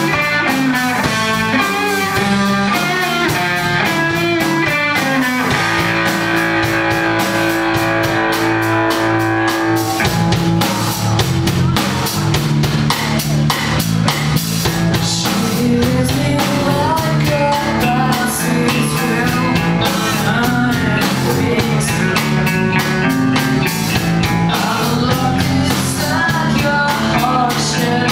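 Rock music with guitar and drums playing steadily, with a long held note a quarter of the way in.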